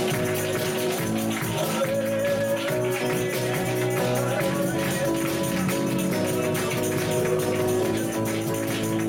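Live worship band playing an instrumental passage: sustained chords over a steady beat, with a tambourine jingling on the rhythm.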